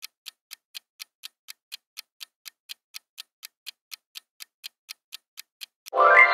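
Countdown-timer ticking sound effect, about four even ticks a second, while the answer time runs out. Near the end the ticking stops and a loud ringing tone starts sharply and begins to fade, the cue that the answer is being revealed.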